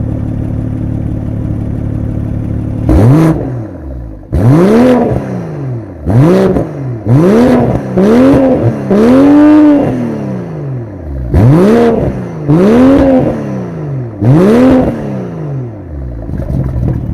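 BMW M340i's 3.0-litre turbocharged inline-six idling through its exhaust in Sport Plus mode, then revved about nine times in quick blips, each rising in pitch and falling back, before settling to idle near the end.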